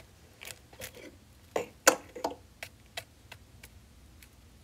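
Small plastic toy horse figurines tapping and clicking on a hard surface as they are hopped along by hand: about ten light, irregular clicks, the loudest about two seconds in, growing sparser and fainter toward the end.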